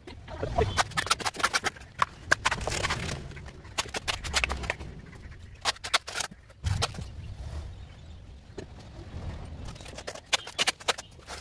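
A steel trowel clinking and scraping against a metal mortar pan as wet concrete is scooped and tipped into wooden formwork, with dull thuds of concrete landing and a wooden stick tamping it in. The clinks come in irregular clusters, busiest in the first few seconds and again near the end.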